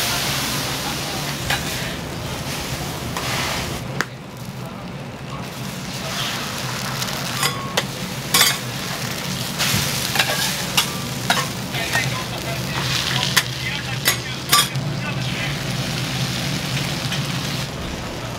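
Food sizzling on a hot iron teppan griddle, with a run of sharp metal clacks and scrapes in the middle, typical of spatulas working the okonomiyaki on the plate.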